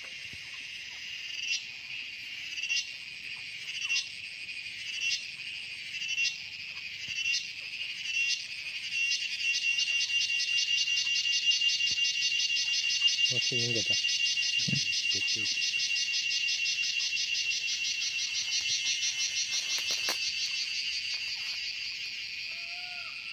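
A wild animal's high-pitched call. It pulses about once a second at first, then runs together at about eight seconds into a continuous, rapidly pulsing trill that slowly fades near the end.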